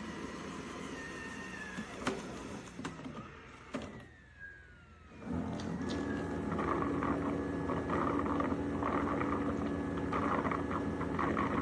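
iRobot Roomba Plus 405 robot vacuum-mop and its AutoWash dock running: the motor sound dies away with a falling whine and a few clicks, goes nearly quiet for about a second, then a motor starts up again about five seconds in and runs steadily with a hum and a rattling chatter.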